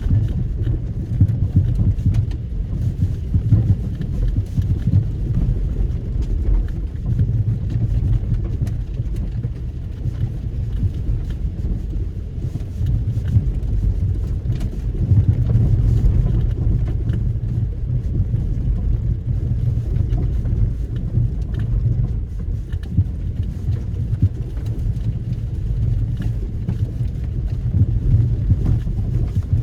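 Nissan X-Trail T30's 2.0-litre petrol four-cylinder driving slowly over rough ground: a steady, uneven low rumble with many small knocks and rattles scattered through it.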